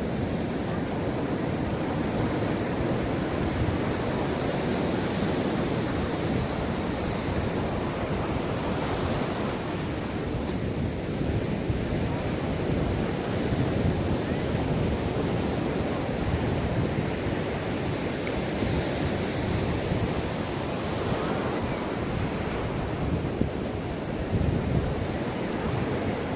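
Ocean waves breaking and washing up a beach: a continuous rushing surf noise, mostly low, that swells and eases gently.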